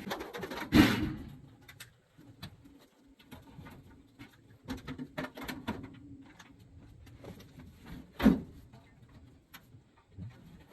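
Scattered clicks and knocks of parts and tools being handled while an HVAC unit is put back together, with two louder knocks about a second in and about eight seconds in.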